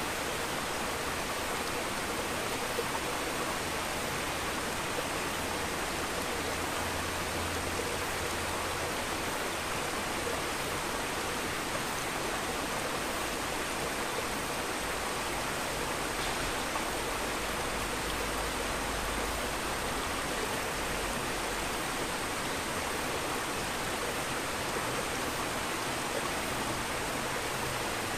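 Aquarium bubbling: a stream of fine air bubbles rising through the tank water and breaking at the surface, a steady hiss.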